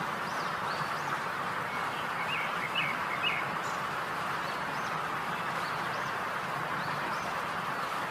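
A steady hiss, with small birds chirping now and then, a cluster of quick chirps a few seconds in.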